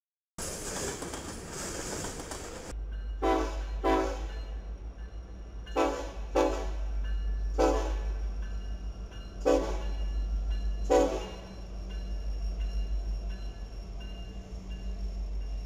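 Diesel locomotive horn giving seven short toots, some in quick pairs, over about eight seconds, above the low rumble of the Norfolk Southern locomotives' engines as they pass. It opens with about two seconds of steady rushing noise from freight cars rolling by.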